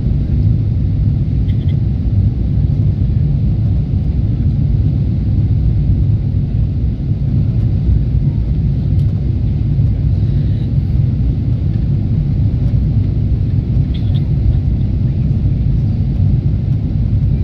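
Steady low rumble inside the cabin of a Boeing 777-300ER climbing after takeoff: its GE90-115B engines at climb thrust and the rush of air along the fuselage.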